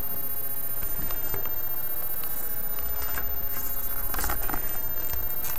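Faint, irregular clicks and scrapes of a small external hard drive being handled and pushed onto its USB adapter, over a steady low background hum.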